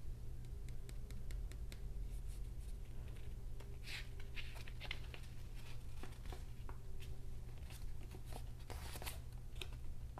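Paper rustling and crinkling as a folded quick-start guide leaflet is handled and unfolded, with scattered soft clicks and the loudest rustles about four seconds in and again near nine seconds. A steady low hum runs underneath.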